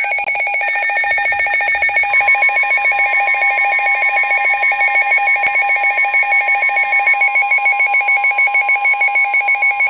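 Emergency Alert System attention tones for a severe thunderstorm warning: a loud electronic alarm trilling in rapid pulses, joined about two seconds in by a steady single tone held underneath.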